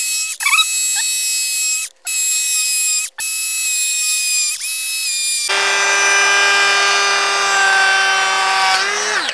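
Milwaukee M12 brushless 2-inch cordless planer running with a high-pitched whine as it chamfers the edge of a wooden board. The whine cuts out briefly twice. About five and a half seconds in it turns fuller and louder with a lower note added, and the pitch sags just before it stops.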